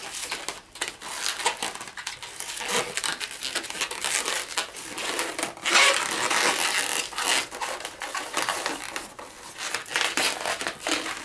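Inflated latex twisting balloon being twisted into bubbles and handled, the rubber making irregular rubbing and scraping noises against itself and the hands.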